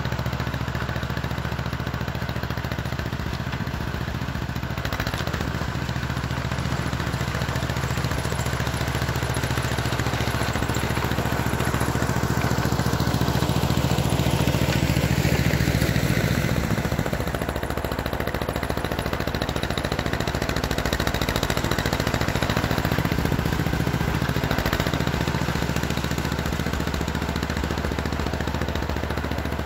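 John Deere 420 crawler's two-cylinder engine running steadily as the crawler pushes snow with its blade. It grows louder as it passes close about halfway through, drops in pitch as it goes by, then fades a little as it drives away.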